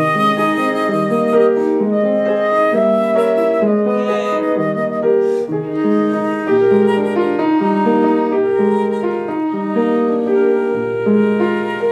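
Flute and upright piano playing classical chamber music together: a sustained flute melody over an even piano accompaniment.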